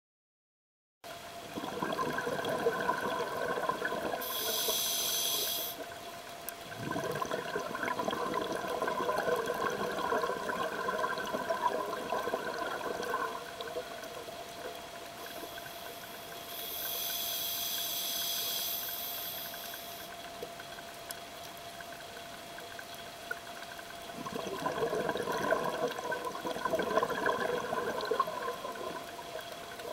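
Scuba diver breathing underwater through a regulator. Three long bursts of gurgling exhaled bubbles alternate with two high hisses as air is drawn through the regulator. A faint steady tone sits under it all.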